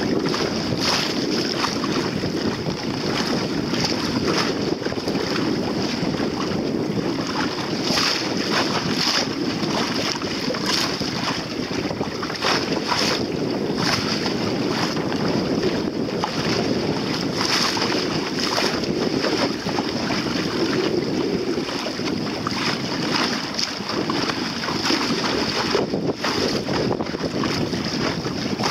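Wind blowing across the microphone and water splashing against the hull of a small sailboat under way: a steady rush with frequent short splashes.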